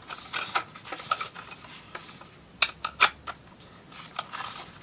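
Hands handling a drone, fitting its camera cover back in place: a scattering of sharp clicks and light rubbing, the loudest clicks about three seconds in.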